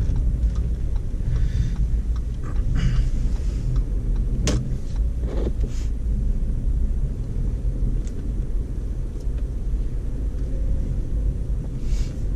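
Steady low rumble of a car driving through snow, with a few brief clicks and knocks scattered through it, the clearest about halfway.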